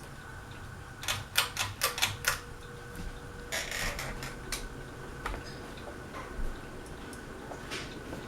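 Harbor Breeze Aristocrat ceiling fan running on high, with a steady hum and irregular clicking and ticking; a quick run of sharp clicks comes about a second in.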